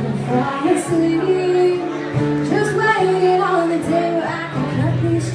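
A woman singing a melody while accompanying herself on an acoustic guitar, in a live solo performance.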